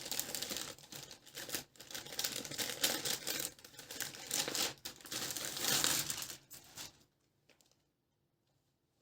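Packaging rustling and crinkling as a parcel holding a T-shirt is opened by hand; the rustling stops about seven seconds in, leaving only a few faint ticks.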